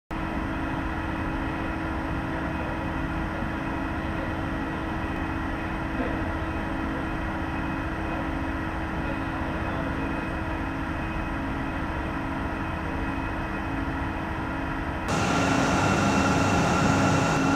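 Steady machinery hum with several held tones, stepping up louder and brighter about fifteen seconds in.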